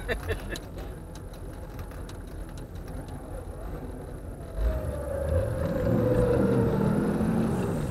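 Off-road 4x4's engine idling low, then revving up hard about halfway through and held at high revs under load, with a whine that slowly sinks in pitch, as the stuck vehicle spins its wheels trying to dig out of the mud.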